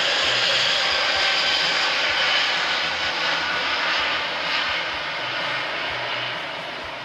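Airbus A380's four jet engines at takeoff power as the airliner climbs out overhead: a loud, steady jet rumble and hiss that fades gradually over the last few seconds as it pulls away.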